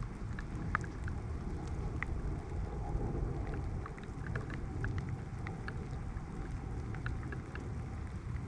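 Light rain falling: many scattered raindrop ticks over a steady low rumble.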